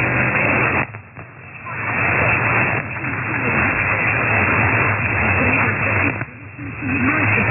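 A weak, distant medium-wave AM signal on 1377 kHz from a low-power station, coming through an SDR receiver as heavy hiss and static with the station's audio barely rising out of it. The signal fades deeply twice, each time for about a second.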